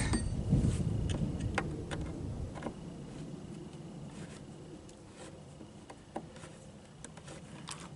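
Scattered light clicks and taps of chainsaw parts being handled during assembly. A low rumble fades away over the first couple of seconds.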